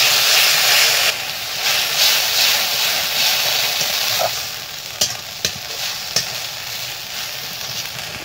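Masala paste of onion, garlic, ginger and green chilli with ground cumin, coriander and chilli sizzling in oil in a metal kadai while a metal spatula stirs and scrapes through it. The sizzle eases off about halfway through, and a few sharp taps of the spatula on the pan follow.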